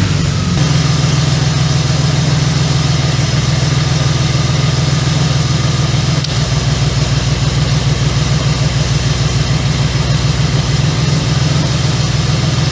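BMW M50B25 straight-six idling steadily just after a start, the cylinder 1 misfire apparently gone so that it runs smoothly.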